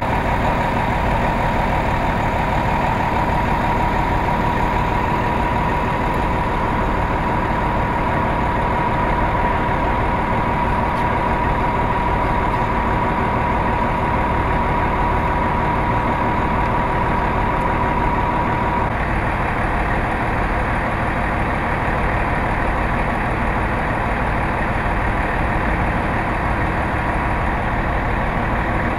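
Fire ladder truck's diesel engine idling steadily, with a thin steady high hum over it that stops about two-thirds of the way through.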